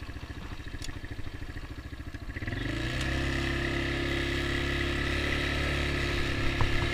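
Small ATV's engine idling, then revving up about two and a half seconds in and holding a steady, higher speed as the throttle is opened.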